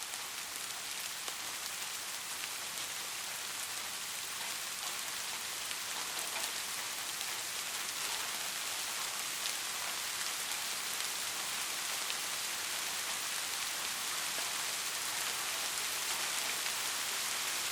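Soft rain falling steadily, a continuous hiss of drops with many small individual taps on a surface, growing slightly louder over the stretch.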